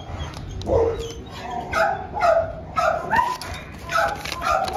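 Shelter dogs barking, a run of about seven barks at uneven intervals.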